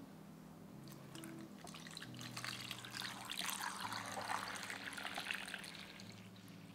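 Stream of water pouring into an enamelled pot over three whole oranges, splashing as it fills. The pouring starts about a second in, is fullest in the middle and tapers off near the end.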